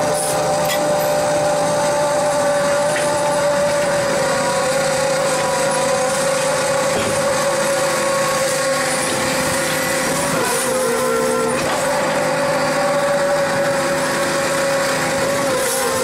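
A scallop dredging boat's machinery running with a steady drone, its pitch dipping briefly about ten seconds in and again near the end.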